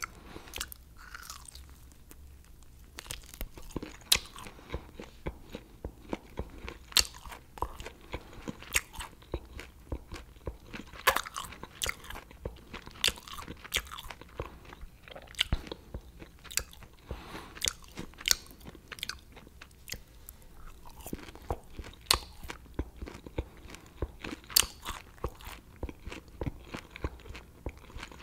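Close-up chewing of fried dried seasoned squid (mực trủng khô tẩm): many irregular crisp crunches, beginning about three seconds in.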